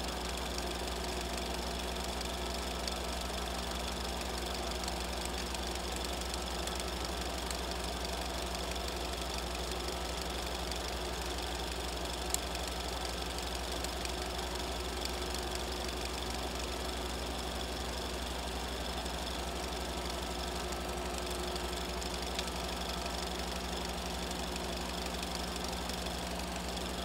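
Steady, unchanging machine hum with hiss, a low drone underneath and a few thin steady tones above it, with one faint click about twelve seconds in.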